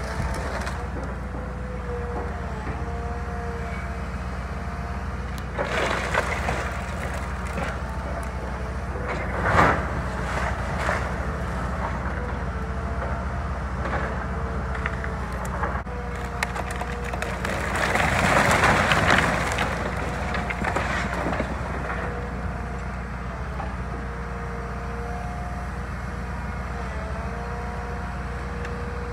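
A Kobelco excavator's engine running, with a whine that dips and shifts in pitch as it works. The rotten timbers of an old barn crack and splinter under it: sharp cracks about six and ten seconds in, and a longer crash of collapsing boards around eighteen to twenty seconds in.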